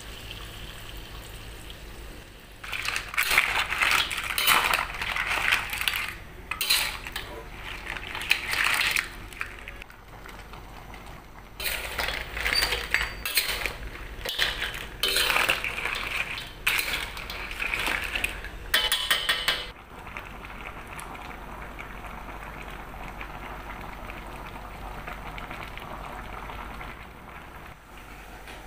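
Mud crab pieces in their shells clattering against a metal wok as they are stirred, in two long bouts of knocks and clinks, with a quick run of ticks near the end of the second; between and after them a steady low hiss.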